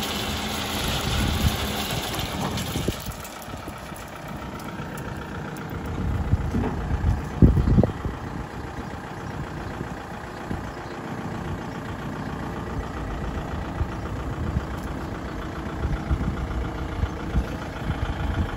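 Tractor diesel engine running steadily at low revs, louder for the first few seconds, with a brief louder low rumble about seven and a half seconds in.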